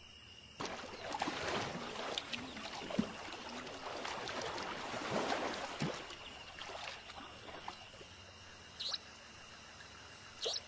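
A tiger wading through a shallow rocky stream, water sloshing and splashing in uneven strokes for several seconds. A thin, steady insect drone runs underneath, and a few short, high chirps come near the end.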